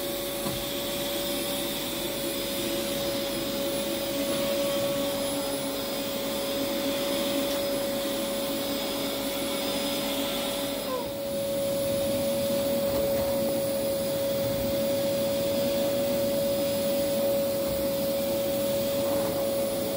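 A motor running steadily, a continuous drone with a constant whine, dipping briefly about halfway through.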